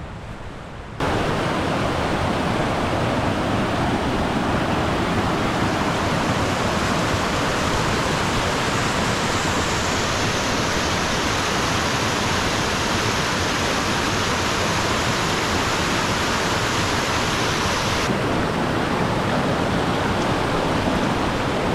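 Rushing river water: a steady, even rush that cuts in suddenly about a second in.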